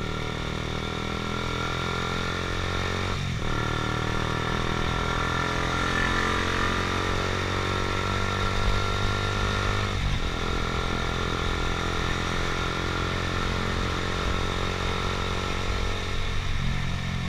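Honda CBR150R's single-cylinder four-stroke engine running steadily while riding. The engine note dips briefly and changes pitch twice, about three seconds in and again about ten seconds in.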